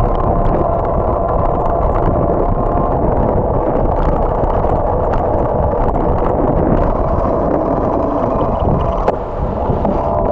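Wind rushing over the microphone of a camera on a moving bicycle, with low road and tyre rumble from riding on asphalt. The noise is loud and steady, with one click near the end.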